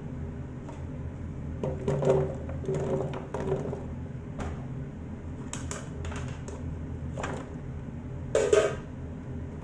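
Chunks of raw potato, sweet potato and other cut vegetables dropped and spread into a metal roasting pan, knocking and clattering against the pan in several bursts, the loudest near the end. A steady low hum runs underneath.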